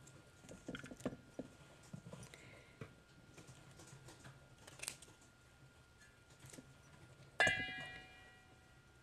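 Faint snaps and crackles of raw cauliflower florets being broken apart by hand, then about seven seconds in a sharp knock on a stainless steel mixing bowl that rings and fades over about a second.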